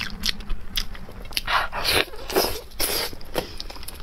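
Close-miked sticky eating sounds of a braised pork hock being pulled apart by hand and chewed: scattered wet clicks, then louder wet tearing noises from about a second and a half in until about three seconds.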